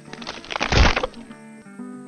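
Background music, broken in the first second by a loud, noisy sound effect that swells, peaks just before a second in, and dies away, like a crash or crack.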